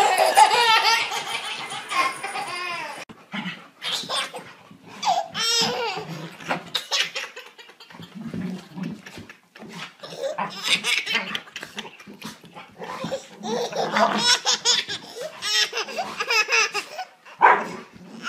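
Babies laughing: repeated bursts of high-pitched giggles and belly laughs.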